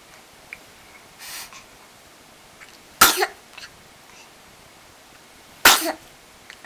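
Two sneezes, the first about three seconds in and the second under three seconds later, with a softer breathy sound before the first.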